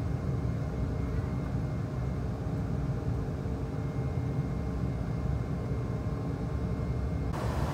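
Steady cabin noise of an Embraer E195 airliner in flight, heard inside the cabin: a low engine and airflow rumble with faint steady tones under an even rushing hiss. Near the end the hiss suddenly becomes brighter.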